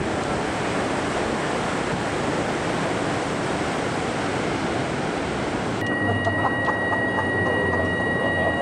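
Heavy ocean surf breaking on a rocky shore, a steady roaring wash. About six seconds in it cuts abruptly to a steady high-pitched whine over a low hum from the cable car station's machinery as the cabin comes in.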